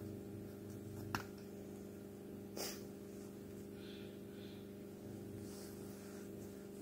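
Quiet handling sounds of a man working a stick with a knife: a sharp click about a second in, a short breathy rush a second and a half later, then soft faint scraping, over a steady low hum.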